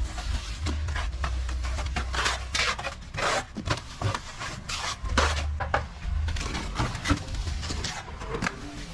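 Plastering trowel scraping across a wall in repeated strokes of uneven length, over a low rumble that comes and goes.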